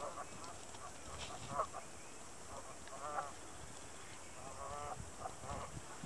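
Distant geese honking, a few calls at a time, every second or two.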